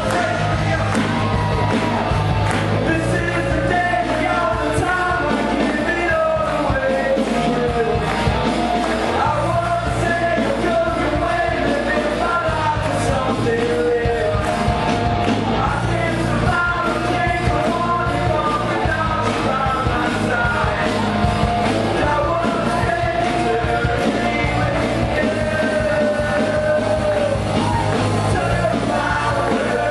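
Live worship band playing a rock-style song: electric guitars, drums, bass and keyboard behind a woman and a man singing into microphones, with a steady driving drum beat.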